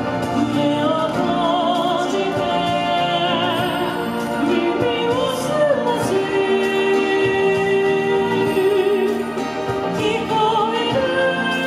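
A woman singing into a microphone with strong vibrato over instrumental accompaniment, amplified through a PA speaker.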